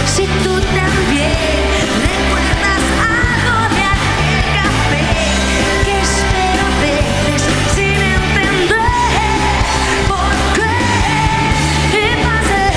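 Live pop-rock band with a female lead singer singing over electric guitar, bass and drums.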